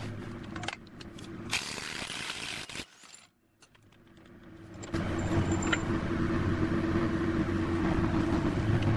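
Impact wrench running in a short loud burst on a truck's front axle nut, breaking it loose, then stopping abruptly. A steady low mechanical hum with a constant tone follows.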